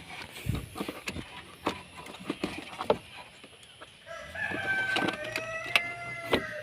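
A rooster crowing once, a long drawn-out call starting about two-thirds of the way in. Before it come scattered light clicks and knocks.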